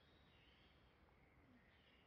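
Near silence: faint outdoor background with a few faint high-pitched sounds.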